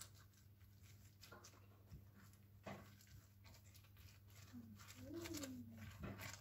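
Near silence: faint soft taps and dabs of a silicone pastry brush spreading beaten egg over baked sausage rolls, over a low steady hum. A brief faint voice is heard about five seconds in.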